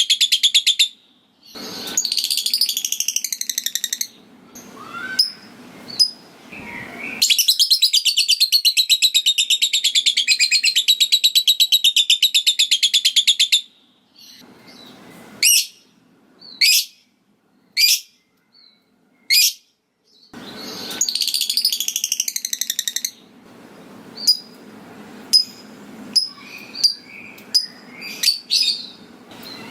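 Lovebird calling: long, rapid, high-pitched chattering trills (ngekek). The longest runs about six seconds. Between the trills come single sharp chirps and short bursts of notes.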